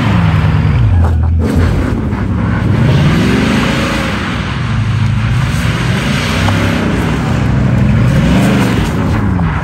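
Bugatti Chiron's quad-turbo W16 engine revving up and easing off again and again as the car drives in circles, its pitch rising and falling in repeated swells.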